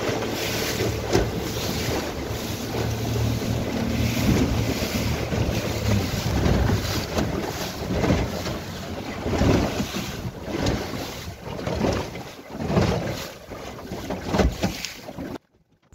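Wind buffeting the microphone over choppy water around a small boat, in uneven gusts, with a low steady hum through the first half. The sound cuts off suddenly just before the end.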